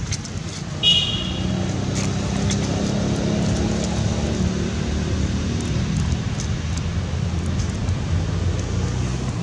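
Steady low rumble of a motor vehicle's engine passing, swelling through the middle. There is a short high squeak about a second in.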